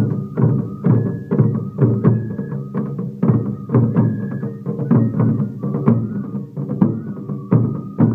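Music with a steady drum beat of about two strikes a second under a high melody line of held notes.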